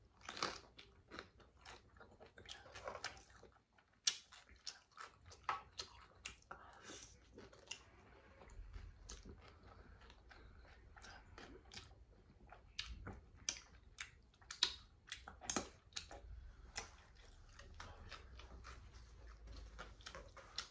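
A person biting and chewing food close to the microphone: irregular short wet clicks and smacks.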